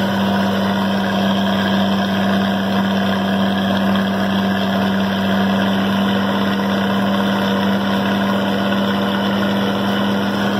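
Combine harvester's engine running at a steady speed, heard from inside the cab: a loud, even drone with a strong low hum.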